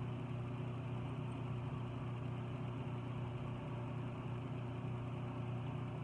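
Steady low electrical hum with a faint hiss behind it, unchanging throughout: room background noise from something running.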